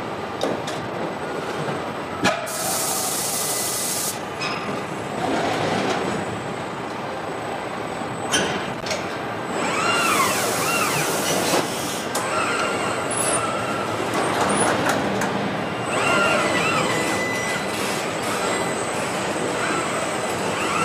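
Industrial robots on a car-body welding line: the servo motors of the robot arms whine up and down in pitch as they move, against steady machine noise with sharp metallic clicks and clanks. Two long hisses of pneumatic air release come about two seconds in and again at ten seconds.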